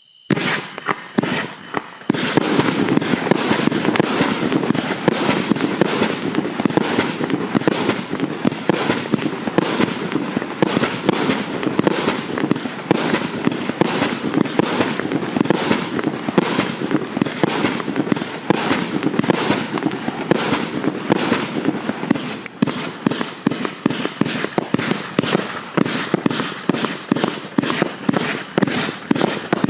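A 212-shot consumer fireworks battery firing: a few separate shots in the first two seconds, then a rapid, near-continuous stream of launch thumps and bursts.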